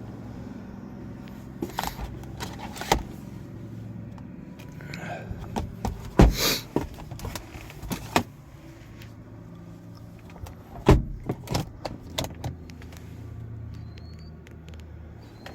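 Scattered clicks and knocks of a car's interior being handled, with two sharp knocks about six and eleven seconds in, over a low steady hum.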